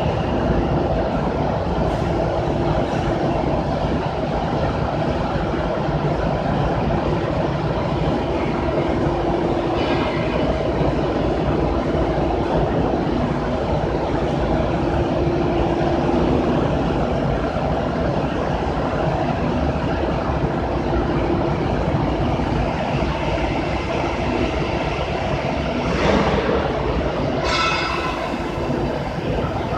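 Sawdust charcoal making machine running: a loud, steady industrial rumble with a hum that comes and goes, and a brief high squeal near the end.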